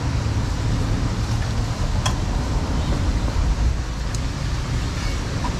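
Steady rumble of road traffic from a busy street, with two short clicks about two and four seconds in.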